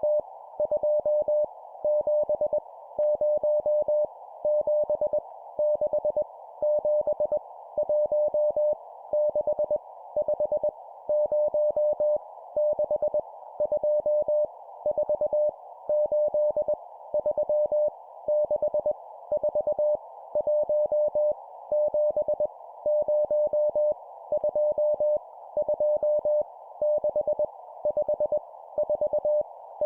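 Morse code (CW) sent as a steady single-pitch tone at 20 words per minute, keying out groups of random numbers with short pauses between groups, over a steady radio-like hiss.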